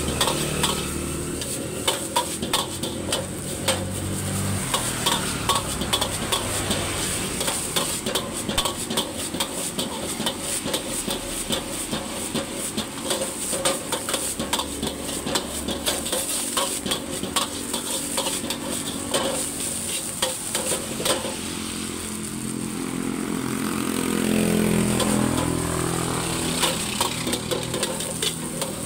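Metal spatula scraping and clanking against a steel wok as fried rice is stirred and tossed over a gas flame, with the rice sizzling. A low engine hum swells and fades near the end.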